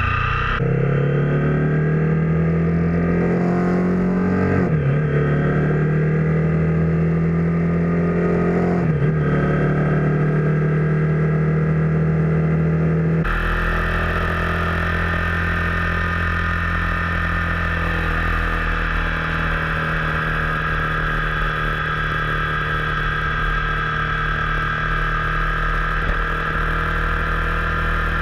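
Engine of the vehicle carrying the camera, heard through a GoPro Hero 4's microphone. It accelerates with its pitch rising, drops twice at gear changes, then after a cut drones steadily at motorway cruising speed under heavy wind and road noise.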